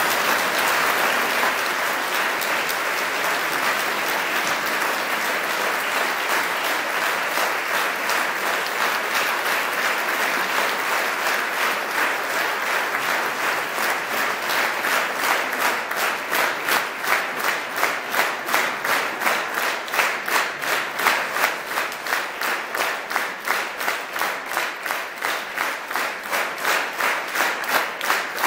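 Concert-hall audience applauding: a dense wash of clapping that about halfway through turns into steady clapping in unison, roughly two to three claps a second.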